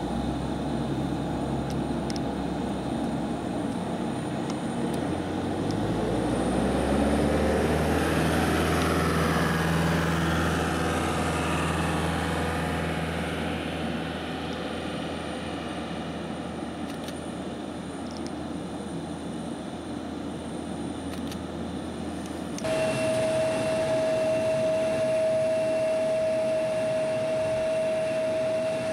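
Airbus A319 turbine whine rising in pitch as it spools up, then running steadily. After a sudden change near the end, a steady high whine with one strong pitched tone.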